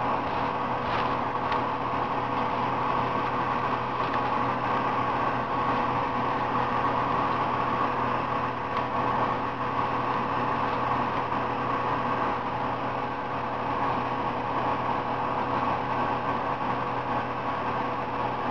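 Steady machine hum: a constant drone with a fainter, higher steady tone over a haze of noise.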